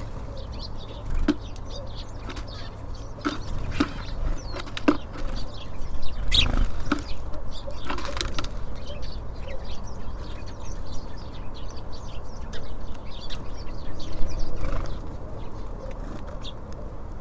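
Small birds at a feeder: wings flutter as birds land and take off, among scattered sharp taps and short high calls.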